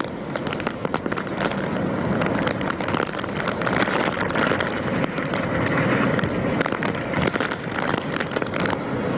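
Strong cyclone wind and heavy rain: a dense, steady rushing noise with crackling on the microphone.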